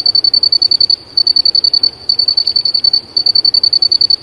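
A cricket chirping loudly and close: a rapid, even pulse on one high pitch, sung in bursts of just under a second with short breaks between them.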